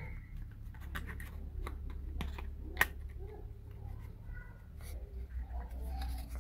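Scattered light clicks and taps of thin laser-cut plywood and clear plastic model parts being handled and pressed together, the sharpest click nearly three seconds in, over a low steady hum.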